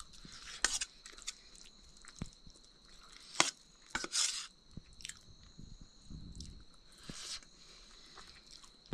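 Someone eating: chewing and crunching with irregular wet smacks and sharp clicks, the loudest about three and a half and four seconds in.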